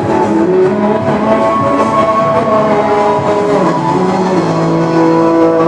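Music over a sound system, with long held notes that change pitch in steps and no singing.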